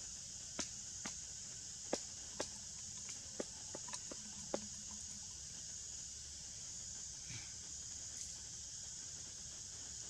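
Steady high-pitched insect drone of a tropical forest, with a run of about eight sharp clicks and snaps in the first half, while a monkey feeds on a branch.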